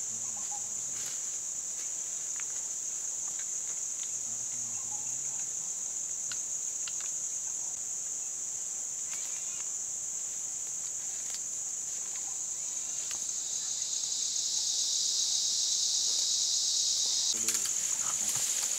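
Steady high-pitched chorus of forest insects. About two-thirds in, a second, lower insect buzz swells in alongside it and cuts off suddenly near the end. Scattered faint clicks and a brief crackle, like twigs and leaves being disturbed, come near the end.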